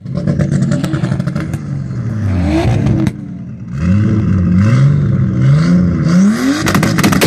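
Nissan Skyline R33 GTS-t's turbocharged 2.5-litre straight-six (RB25DET) being revved repeatedly through the exhaust, the pitch rising and falling in quick blips. Sharp crackles in the first second and a burst of loud pops near the end.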